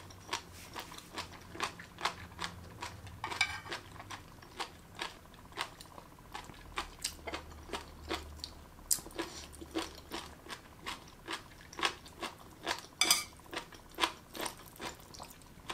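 Chewing crunchy marinated jellyfish: a steady run of short, sharp crunches, about two to three a second.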